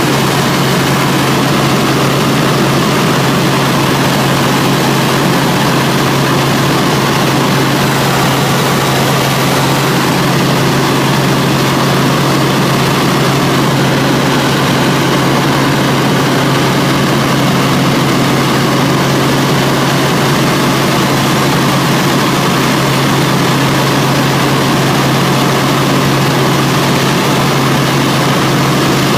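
Helicopter cabin noise in flight: the engine and rotor give a loud, unchanging drone, with a strong low hum under a dense hiss.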